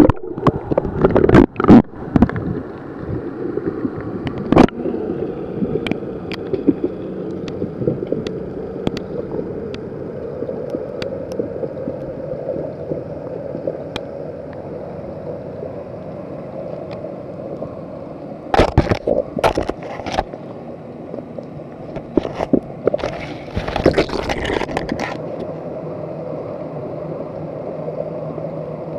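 Muffled underwater sound picked up by a phone held beneath the sea surface: a steady low hum throughout, with loud splashy knocks in the first two seconds as it goes under and two more bursts of sloshing noise in the second half.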